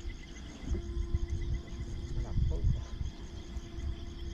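Insects chirping in rapid, evenly pulsed trills at several pitches, with a steady low hum coming in about a second in and a low rumble underneath.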